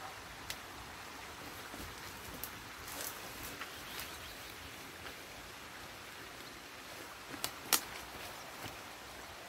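Sticks and brush of a beaver dam cracking and snapping as branches are pulled out and trodden on. A few scattered sharp snaps, the loudest pair near the end, over a steady background hiss.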